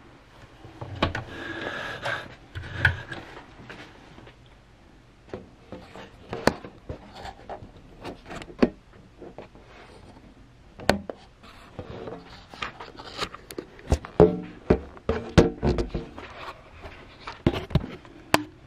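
Handling noise at a sewing machine: fabric rustling and scattered clicks and taps as a stitched test piece is freed from under the presser foot and handled, with a busier cluster of taps near the end. The machine itself is not running.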